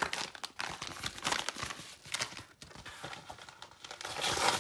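Paper packaging crinkling and tearing as a yellow padded mailer envelope is handled and opened, with a louder stretch of rustling near the end.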